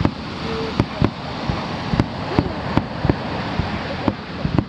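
Fireworks shells bursting over the sea, an irregular run of sharp bangs about two a second, over a steady wash of surf.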